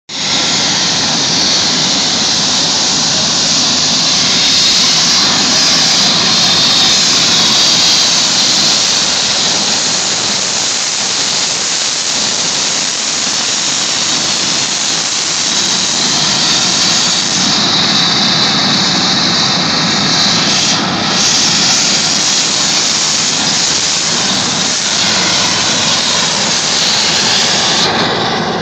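Turbine helicopter running on the ground close by: a loud, steady rush of turbine and rotor noise.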